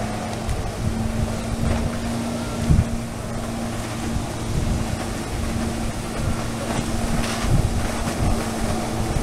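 Jet ski engine running at a steady pitch as it drives water up the hose to a Flyboard, with the rush of the water jets and wind buffeting the microphone.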